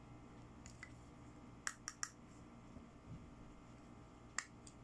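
Sharp plastic clicks from small toy eyeshadow compacts being handled: three quick clicks a little under two seconds in, and one more near the end as a compact's clear lid is opened.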